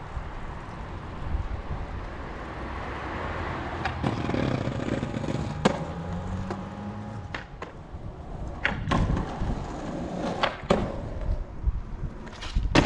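Skateboard wheels rolling over rough asphalt with a steady rumble, broken by several sharp clacks of the board slapping the ground as the tail is popped and the board lands. The loudest clack comes near the end.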